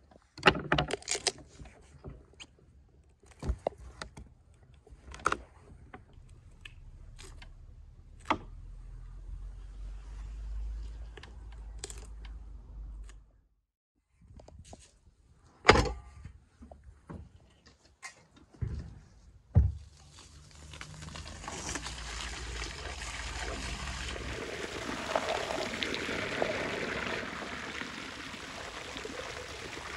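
A knife working through a raw goose on a wooden cutting board, with sharp knocks and clicks. Then a loud knock near the middle, and for the last ten seconds a stream of water pouring and splashing onto the goose in a large metal colander.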